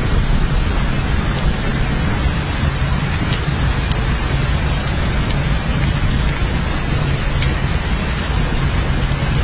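Steady heavy rain falling, with scattered sharp drop ticks over an even hiss and a steady low rumble beneath.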